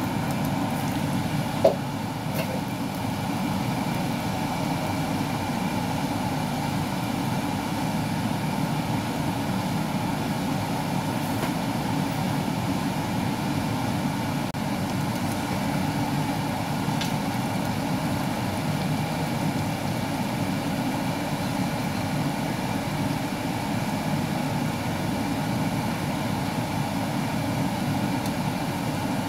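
Steady low rushing hum at the gas stove while a claypot of broth boils. There is one sharp clink about two seconds in.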